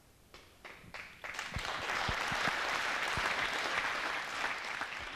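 Audience applauding: a few scattered claps, then full applause building about a second in, easing off near the end.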